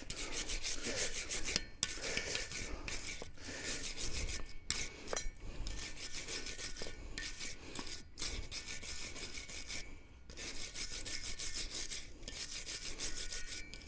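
Wire brush scrubbing rust off steel lug nuts on a truck wheel hub: rapid back-and-forth scraping strokes with a few brief pauses.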